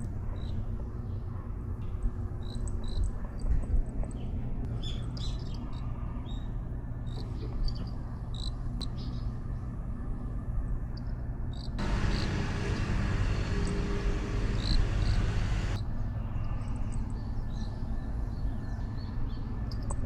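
Outdoor ambience: scattered short, high chirps over a steady low rumble. From about twelve to sixteen seconds in, a louder steady hiss covers the chirps.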